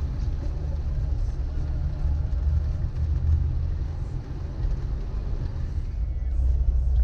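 Suzuki Vitara 1.6 EFI four-cylinder petrol 4x4 driving off road, a steady low engine and drivetrain rumble that rises and falls a little.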